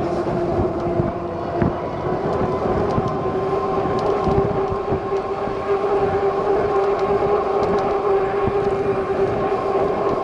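Lectric XP e-bike's rear hub motor whining steadily under way, its pitch edging up slightly about five seconds in, over wind rumble on the microphone.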